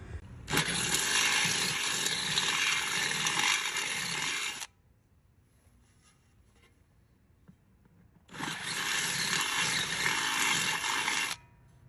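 Cordless drill with a twist bit boring out a bolt hole in a lamp post's pot-metal base, in two steady runs of about four and three seconds with a pause between them. The hole is being enlarged to fit over fatter existing anchor bolts.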